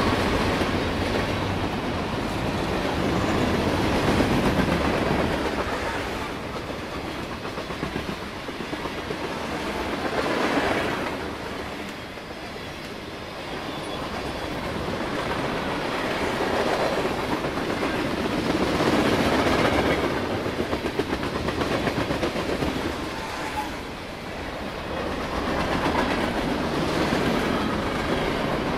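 Freight train passing close by: a Norfolk Southern diesel locomotive in the consist runs past near the start, loudest there, then a long string of freight cars rolls by, wheels clacking over the rail joints in swells that come and go every few seconds.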